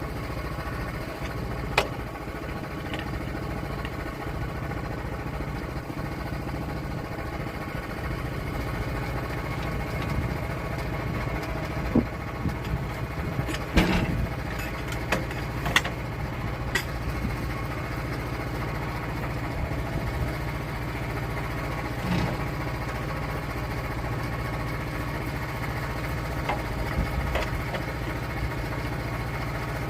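Small engine of a portable sawmill running steadily at constant speed, with a few sharp knocks about 2, 12, 14 and 16 seconds in.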